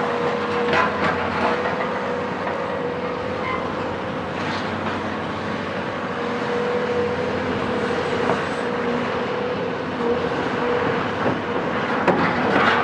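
Cat 374 hydraulic excavator's Cat C15 diesel engine running steadily with a held whining tone, over scattered knocks and clanks that come more often near the end.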